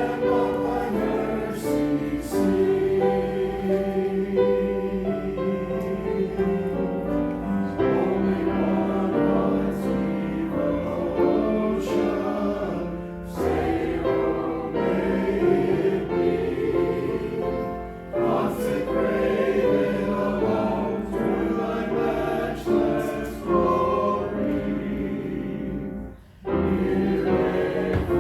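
A choir singing a hymn in sustained, held notes, breaking off briefly near the end before carrying on.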